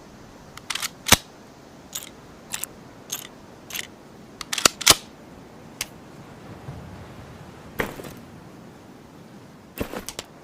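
Ruger American bolt-action rifle's mechanism making a series of sharp metallic clicks and snaps at irregular spacing, some in quick pairs, with the loudest about a second in and near five seconds.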